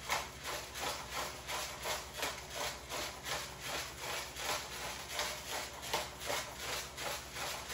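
Hand-twisted pepper mill grinding black peppercorns: a steady rhythmic rasping, about three to four grinding strokes a second.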